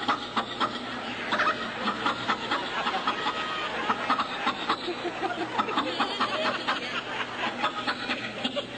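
Audience chuckling and chattering, with chicken-like clucking mixed in.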